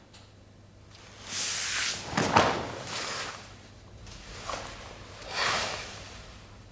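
A karateka's forceful, hissing Gōjū-ryū kata breathing: two long exhalations about four seconds apart, with a couple of sharp snaps of movement shortly after the first.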